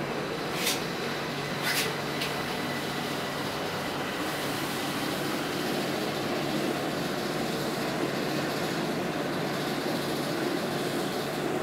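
KONE inclined elevator cabin running along its inclined track, a steady mechanical running noise with a faint hum. A few short sharp clicks come in the first couple of seconds.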